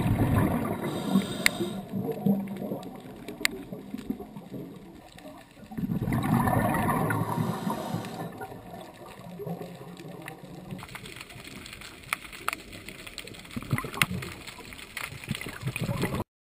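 Underwater sound of a diver's exhaled bubbles gurgling in swells a few seconds apart, with scattered sharp clicks. The sound cuts off just before the end.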